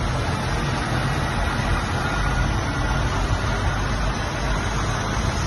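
Diesel tractor engines running steadily as a line of tractors drives past, one close by.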